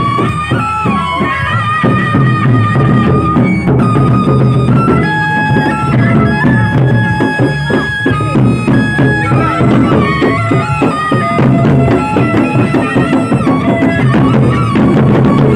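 Sasak gendang beleq ensemble playing in procession: large barrel drums beaten in a driving rhythm, with sharp metallic hits and a melody of held notes above them.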